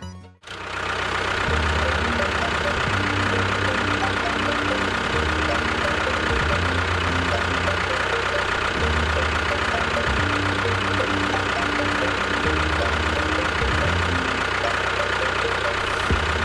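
Small engine running steadily with a knocking beat, its low note shifting up and down every few seconds. It starts abruptly about half a second in.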